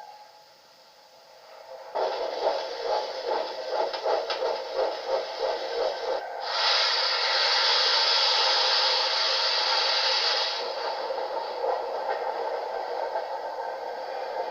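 LNER A4 steam locomotive Mallard moving off, with a quick run of exhaust beats, then a loud hiss of steam for about four seconds starting a little over six seconds in, followed by softer working sounds.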